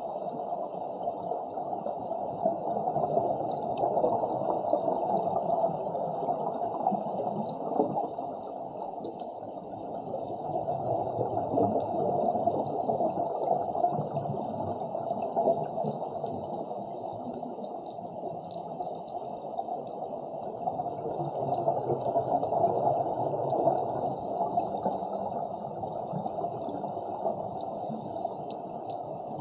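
Underwater ambience picked up by a submerged Insta360 action camera: a steady, muffled rushing wash that swells and eases slowly.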